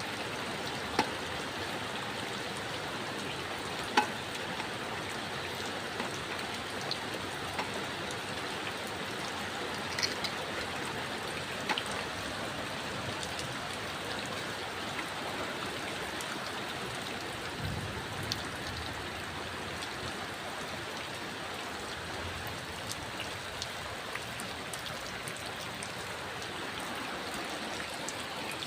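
Steady rain falling, with occasional single louder drops clicking sharply, the loudest about a second and four seconds in.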